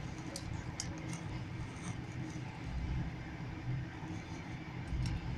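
Train wheels running on the rails, heard from inside a passenger carriage: a steady low rumble with a couple of heavier knocks, about halfway through and near the end.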